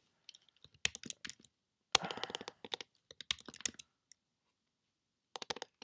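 Typing on a computer keyboard: quick runs of key clicks with short silent pauses between them. The densest run is about two seconds in, and a brief last run comes near the end.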